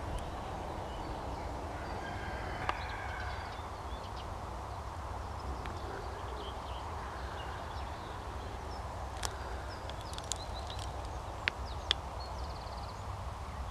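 Open-field outdoor ambience: a steady low rumble with scattered short bird chirps and calls, a few sharper clicks near the end.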